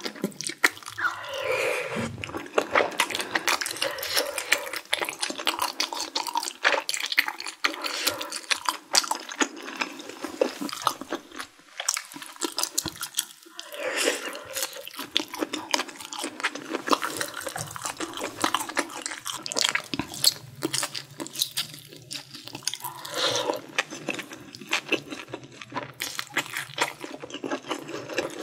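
Close-miked eating: slurping glass noodles in mala sauce and wet chewing, a dense run of small mouth clicks and smacks throughout, with a few longer slurps.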